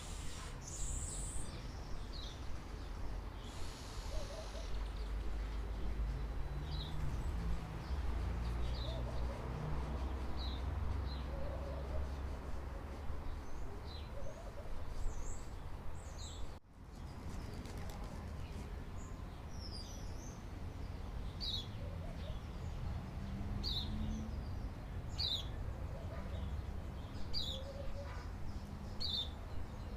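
Wild birds chirping in short, repeated calls over a steady low rumble of background noise. The sound cuts out briefly about seventeen seconds in.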